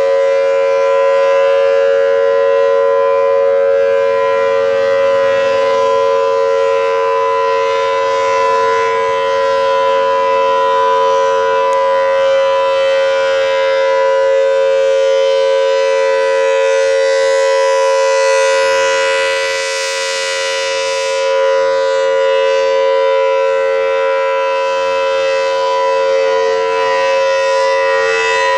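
A Federal Signal Thunderbolt 1000AT outdoor warning siren, an early A2 series with the larger 5M blower, sounding a loud, steady, high-pitched tone. The volume dips a little about two-thirds of the way through.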